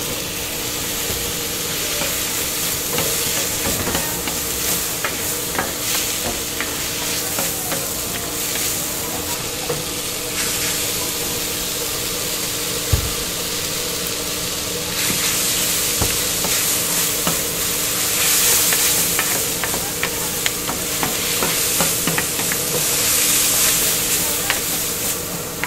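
Udon noodles and bean sprouts sizzling on a hot flat iron griddle as they are stir-fried, with frequent clicks and scrapes of the spatulas on the griddle. The sizzle grows louder a little past the middle.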